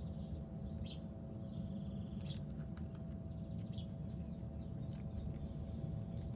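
Birds chirping now and then with short calls and a brief trill, over a steady low rumble and a faint hum.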